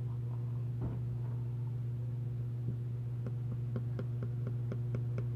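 A steady low hum throughout. From about three seconds in, a metal spoon makes light, even clicks against a ceramic mug, about four a second, as it scrapes whipped dalgona coffee foam out of the mug.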